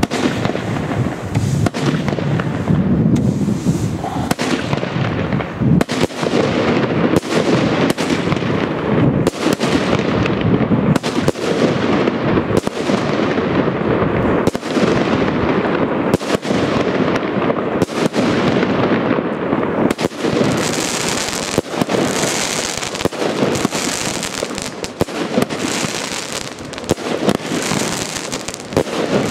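Gaoo 'Cyclone' 19-shot consumer firework battery firing: a steady run of shots launching and bursting, about one a second, each bang trailing off in an echo. In the last third a hissing crackle joins the bursts as crackling stars break overhead.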